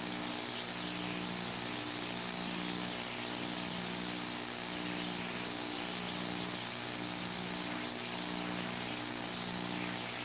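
Steady hiss with a low electrical hum that pulses in an even alternating pattern about once a second.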